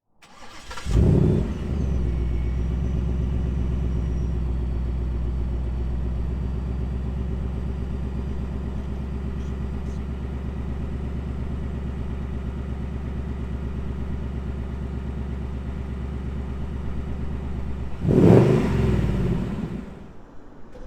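Ford Mustang GT's 5.0-litre naturally aspirated V8 starting with a loud flare about a second in, then settling into a steady, even idle. Near the end, one throttle blip rises and dies away over a couple of seconds.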